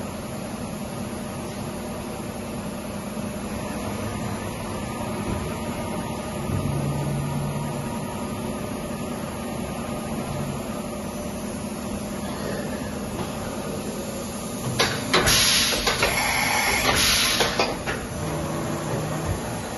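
Vertical machining centre running under its CNC program: a steady machine hum, with a low steady tone that comes in twice. Near the end there is a loud hiss lasting about two and a half seconds.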